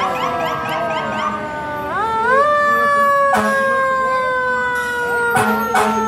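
Fire engine siren sounding as the trucks pass. Its pitch slides slowly down, is driven sharply back up about two seconds in, then slides slowly down again. A few short, sharp sounds cut across it.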